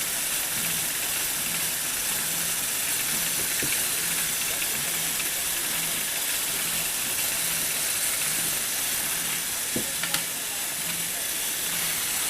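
Lego Technic model car's small electric motor and plastic gears running steadily with a hissing whir, a faint low hum pulsing about twice a second and a couple of light clicks about ten seconds in.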